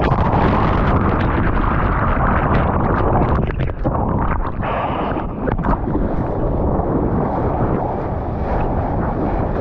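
Sea water and wind rushing over an action camera's microphone while bodyboarding in the surf: a loud, steady rumble with scattered sharp splashes and knocks.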